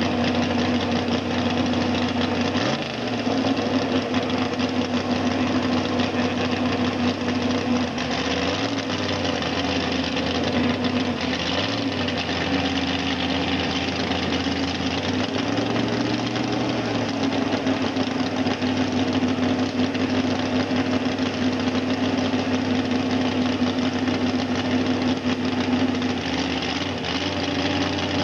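A vehicle engine idling steadily, with small shifts in pitch now and then.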